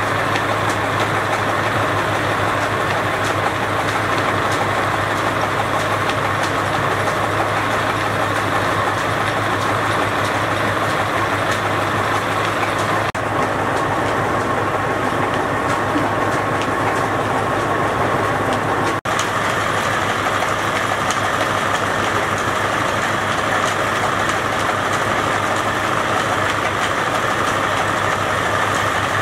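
A small engine running steadily with a constant low drone that does not change in pace.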